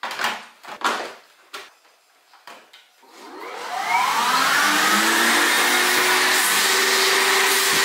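A few clicks and knocks as the Hyla water-filter vacuum is closed up. About three seconds in its motor starts with a rising whine, then runs loud and steady.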